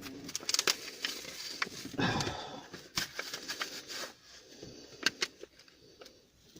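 Rustling and scattered light clicks of a small package being opened and its thin adhesive bonding mesh handled, busiest about two seconds in.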